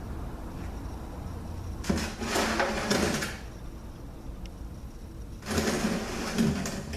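Two bursts of metal sliding and scraping, each about a second and a half long, as stripped transmission parts are moved about on a workbench. A steady low hum runs underneath.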